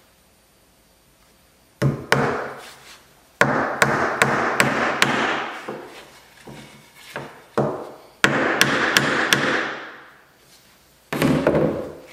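Claw hammer driving a small nail into a plywood block to make the pivot pin of a bandsaw circle jig. The blows come in several quick runs of about two to three a second, each strike ringing briefly.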